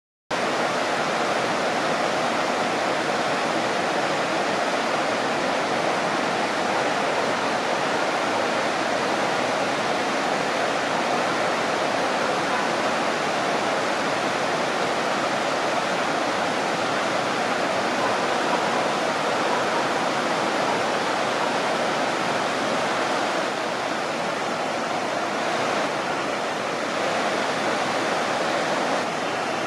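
Whitewater of a low, rocky river waterfall and its rapids rushing steadily, a constant full-bodied wash of water noise.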